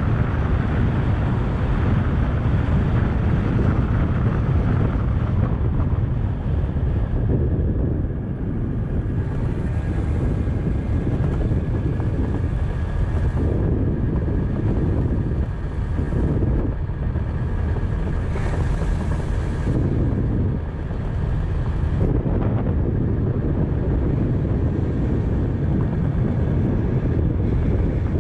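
Wind rushing over the microphone while riding a Kymco motorbike along a road. The motorbike's engine runs steadily underneath, with a faint steady whine.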